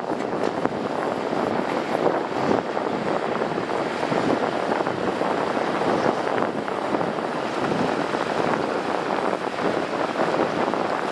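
Shantui bulldozer working: a steady, even noise of engine and machinery with no breaks.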